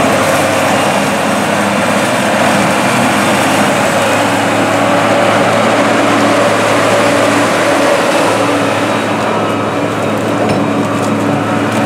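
Case IH 9150 four-wheel-drive tractor's Cummins six-cylinder diesel running steadily under load as it pulls a 13-shank chisel plow, a low, even drone that eases slightly near the end.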